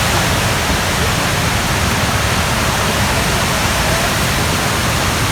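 Waterfall: steady rushing water.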